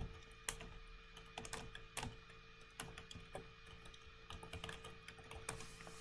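Typing on a computer keyboard: a run of irregular keystrokes, a few louder taps among them.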